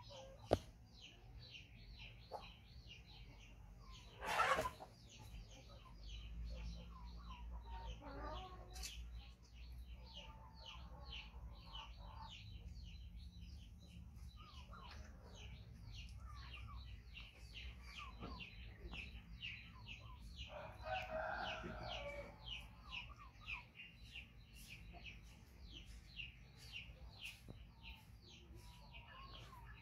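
Birds chirping steadily in the background, several short high chirps a second, with a sudden louder sound about four seconds in and a longer call a little past the twenty-second mark.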